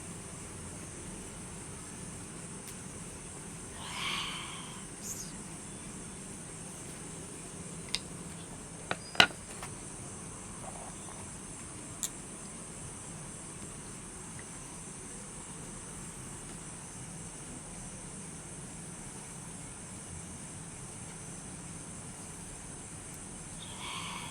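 Steady night-time ambience with a high-pitched insect chorus like crickets. A short rustle comes about four seconds in and again near the end, and a few sharp clicks come in the middle, the loudest a close pair.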